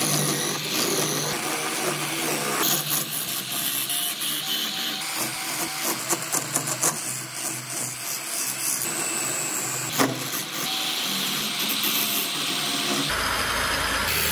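Wood lathe spinning a wooden wheel blank while a turning chisel cuts into it: a steady motor hum under the rough, scraping hiss of the cut, broken by frequent crackles as shavings fly off. Near the end the sound shifts to a deeper rumble.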